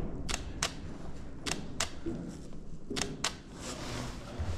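DSLR camera shutter firing three times, each shot a double click about a third of a second apart.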